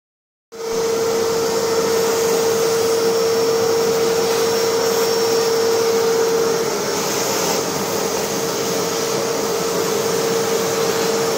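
LowRider CNC's router spindle cutting a pocket in plywood, together with a vacuum hose sucking up the chips: a steady machine whine over a rushing noise. It starts abruptly about half a second in, and the whine drops slightly in pitch a little past halfway.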